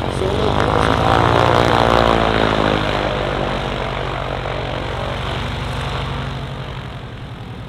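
Boeing Stearman N2S-4 Kaydet biplane's radial engine running at taxi power as the plane turns and rolls past on the runway, with a fast propeller beat. It is loudest one to three seconds in and gradually fades as the plane moves away.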